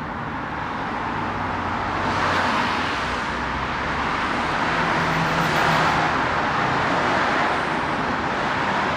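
Electric driver's seat of an Audi TT, its motor running as the seat travels along its track. It gives a steady whirring noise that swells over the first couple of seconds and then holds.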